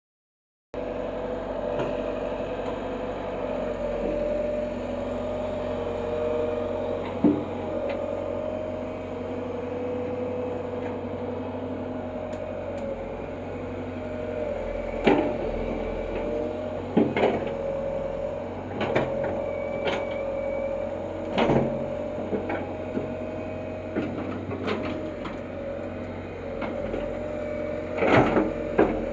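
Excavator running steadily with a constant hum while digging, broken by sharp knocks and clanks: a few in the middle, spaced about two seconds apart, and a cluster near the end.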